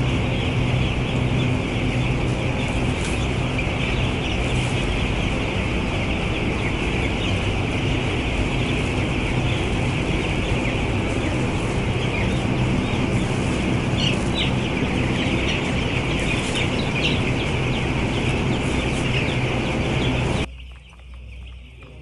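A huge flock of broiler chicks peeping all at once, a dense unbroken chorus of high chirps over a steady low hum. Near the end it drops suddenly to much quieter peeping from a few chicks.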